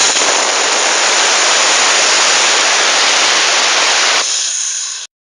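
Abrasive jet machine blasting: a steady hiss of compressed air carrying abrasive grit out of the nozzle. It starts abruptly, thins out after about four seconds and stops shortly after.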